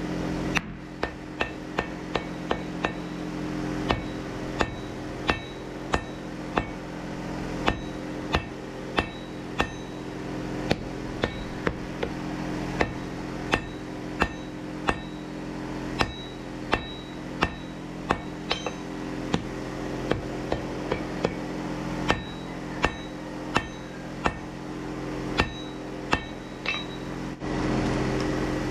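Hand hammer blows on red-hot Damascus steel on an anvil, at a steady pace of roughly three blows every two seconds, each with a short metallic ring. A steady low hum runs underneath, and the hammering stops about a second before the end.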